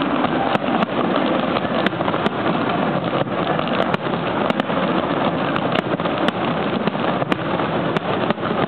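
Fireworks going off in a dense, unbroken barrage: many sharp cracks over a continuous loud crackle.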